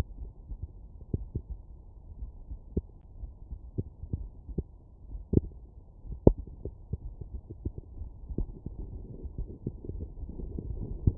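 Heartbeat at rest heard through a stethoscope's diaphragm over the mitral valve area: a series of short, dull thumps from the closing heart valves. A couple of beats near the middle stand out louder.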